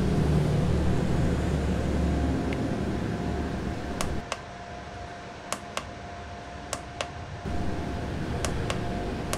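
Buttons on a vinyl cutter's control keypad being pressed: about six sharp clicks, mostly in close pairs, over the machine's steady hum. A low rumble in the first few seconds dies away before the clicks.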